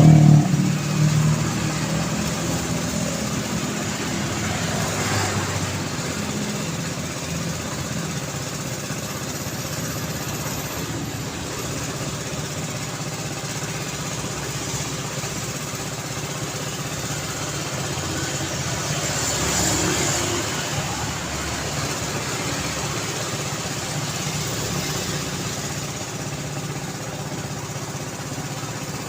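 City road traffic: engines running and vehicles passing, over a steady hum and tyre noise. A loud engine fades away in the first second or so, and another vehicle swells past about two-thirds of the way through.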